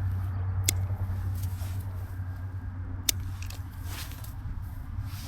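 Two sharp knocks, about two seconds apart, over a steady low hum.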